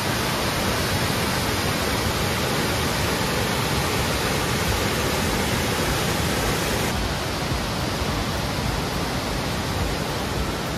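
Waterfall rushing steadily as water pours down rock ledges and between boulders into a pool. The hiss dulls slightly about seven seconds in.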